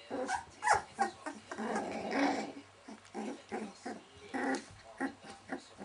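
Welsh Springer Spaniel puppies, 19 days old, making short whimpers and squeaks, about a dozen in quick succession, the loudest about a second and two seconds in.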